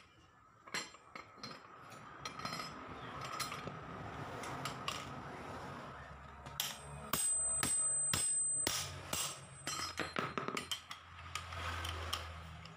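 Metal hand tools clinking, tapping and knocking irregularly on a scooter's CVT secondary pulley and clutch assembly as it is taken apart. A thin high whine is heard for about a second and a half near the middle.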